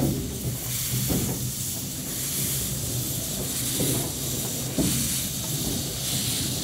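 Narrow-gauge steam locomotive hissing steam from its open cylinder drain cocks as it moves off slowly, with a few soft exhaust puffs.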